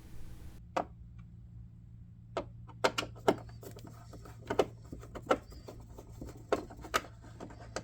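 Irregular sharp clicks and taps of a screwdriver and small screws against a coffee machine's black plastic panel as its four screws are taken out, over a faint steady hum.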